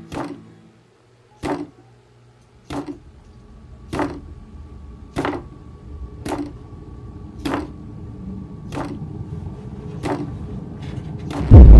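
Horror sound design: slow, evenly spaced thuds, about one every second and a quarter, over a low drone that slowly builds. Near the end a sudden, very loud low rumbling noise cuts in.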